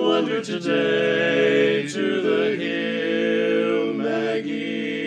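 Male barbershop quartet singing a cappella in close four-part harmony, holding steady chords that shift every second or so.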